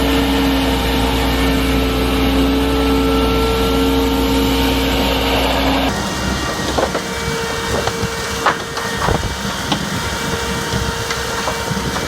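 Excavator-mounted vacuum suction machine running with a steady hum and low rumble. About halfway through the sound changes abruptly to a rougher noise with scattered irregular knocks and clatters.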